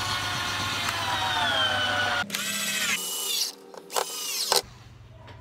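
Cordless drill-driver driving wood screws into wooden decking boards. A long run with the motor pitch sagging as the screw bites in is followed by several short bursts, and it stops about four and a half seconds in.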